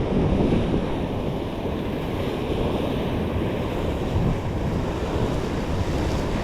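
Wind buffeting the microphone over the steady wash of ocean surf against the rocks.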